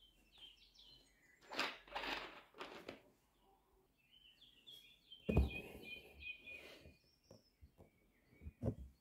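Embroidery needle and thread drawn through linen stretched taut in a hoop, a faint rasping scrape, twice: once about a second and a half in and louder about five seconds in. Small birds chirping in the background.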